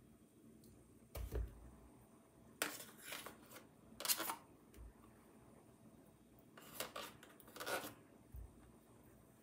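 A metal spoon scraping margarine out of its tub and tapping against the rim of a mixing bowl: a handful of short, faint clicks and scrapes with a few soft thumps in between.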